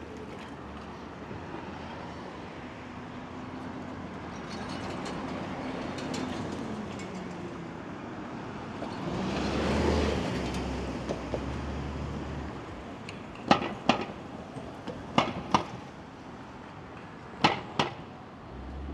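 City street traffic noise, with a vehicle passing and swelling loudest about halfway through. In the second half come three pairs of sharp knocks, the two knocks in each pair quick together.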